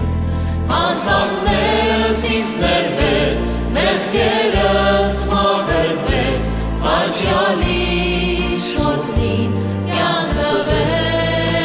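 A woman and men singing an Armenian Christian worship song together, backed by plucked oud and kanun, keyboard and a steady low bass line.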